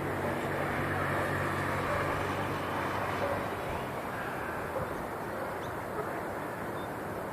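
City ambience: a steady wash of traffic noise, with a vehicle engine's low hum fading out about three seconds in. A few faint bird chirps come through in the second half.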